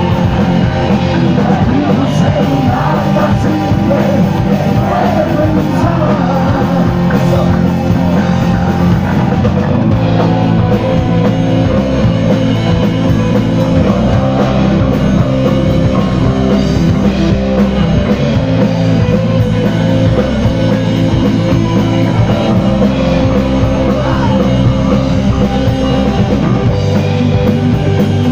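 Live rock band playing loudly on electric guitar and drum kit, a steady full-band sound with no breaks.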